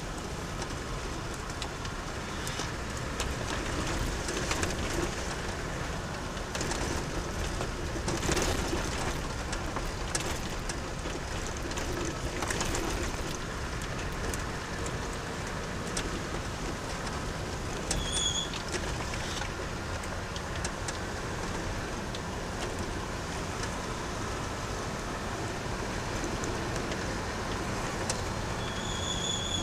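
Off-road car driving over a rough track, heard from inside the cabin: a steady rumble of engine and tyres with scattered knocks and rattles. A short high beep sounds twice, about 18 seconds in and again near the end.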